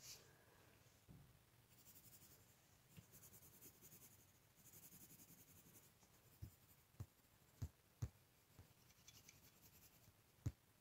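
Pen strokes scratching on paper, in stretches of quick back-and-forth scribbling, with a few short sharp taps in the second half.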